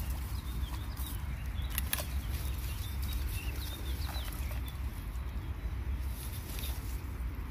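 Small birds chirping repeatedly over a steady low rumble on the microphone, with a few sharp clicks in the first two seconds.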